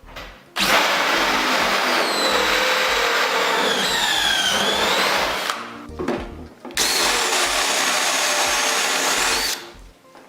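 An electric power tool's motor running in two long bursts with a high whine, its pitch dipping and recovering as it takes load partway through the first burst.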